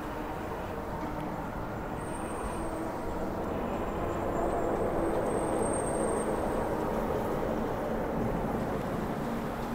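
Steady rushing noise of riding along with traffic: wind and road noise, growing a little louder from about four to seven seconds in.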